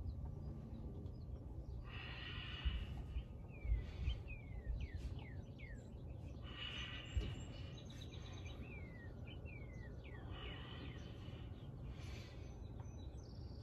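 Wild birds singing: a series of short downward-sweeping chirps and a few bursts of a higher buzzy trill, over a faint steady low rumble, with a couple of brief soft knocks.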